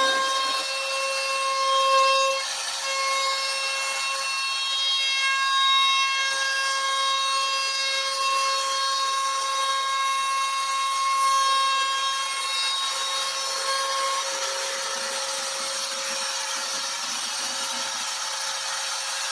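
CNC router spindle carving a 2.5D relief design into wood, a steady high whine with overtones as the bit cuts.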